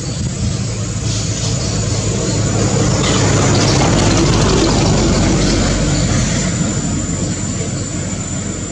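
An aircraft passing overhead: a steady engine rumble that swells to its loudest about four seconds in and then slowly fades.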